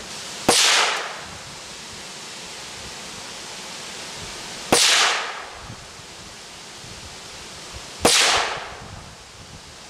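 Three shots from a Ruger Mark III Hunter .22 LR pistol firing CCI Stinger hyper-velocity hollow points, about four seconds apart. Each is a sharp crack followed by a brief fading echo.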